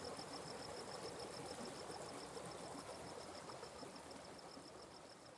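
Atlantic Forest stream running steadily, with a high, pulsing animal call repeating about eight times a second above it; the sound fades out gradually.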